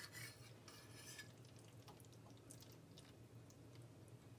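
Near silence, with faint scraping and clicking of a metal fork and ladle against a frying pan in about the first second, then a few faint ticks.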